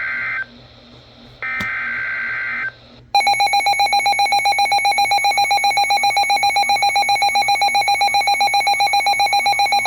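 Two short bursts of Emergency Alert System digital code tones, a screechy data buzz about a second apart, followed from about three seconds in by a loud, steady electronic alert tone that pulses rapidly.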